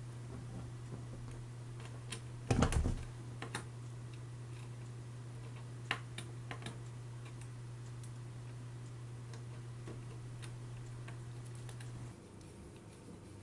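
Small clicks and taps of jumper-wire connectors being pushed onto a CNC shield's pin headers and handled, with one louder knock about two and a half seconds in. A steady low hum underneath stops shortly before the end.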